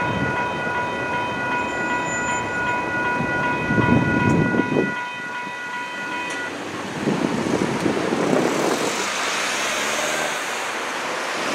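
Two WCH Type 1.5 electronic crossing bells ringing in a steady high chime over the rumble of a Metra commuter train, which fades out about five seconds in. The bells cut off suddenly a little over six seconds in as the gates go up, and cars then drive across the crossing.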